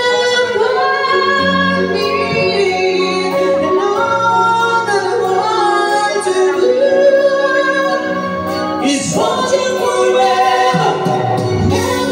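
A woman singing into a microphone over backing music, holding long notes.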